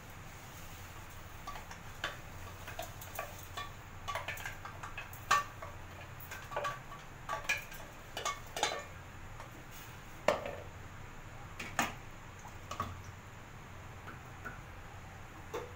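A spoon knocking and scraping against a clay cooking pot as ground pearl millet is stirred into boiling water: a dozen or so irregular clicks and taps over a low steady hum.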